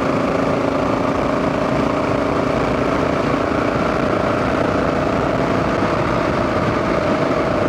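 Motorcycle engine running at a steady cruising speed, its note holding even, under a steady hiss of wind and road noise.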